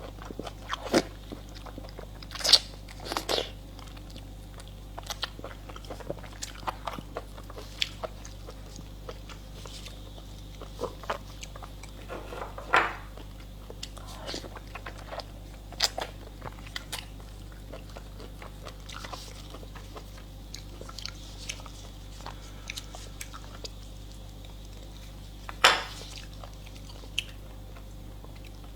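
A person chewing and biting food close to the microphone: scattered wet clicks and smacks, with a few louder sharp bites near the start, about halfway through and near the end.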